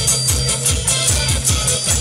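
Live folk band playing without singing: guitar and bass notes over a steady drum and tambourine beat.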